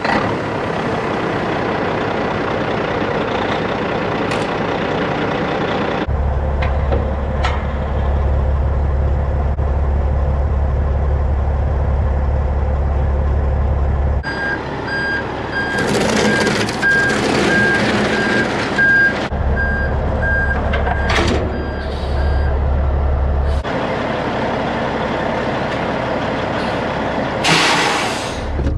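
Kenworth T800's Caterpillar C-15 diesel idling with a steady low hum, while a backup alarm beeps about twice a second for several seconds as the tractor reverses under the end dump trailer. Near the end comes a short, loud hiss of air.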